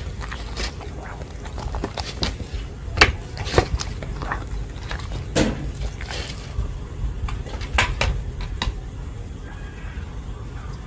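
A dog eating: irregular wet smacks and chewing clicks as it works at its food, fewer near the end.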